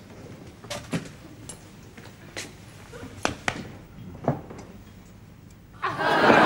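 A few scattered light knocks and rustles of paper and things being handled on a table, then incidental music starts abruptly near the end.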